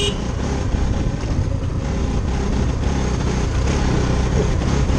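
Motorcycle engine running steadily while riding, with wind rumbling on the rider-mounted microphone.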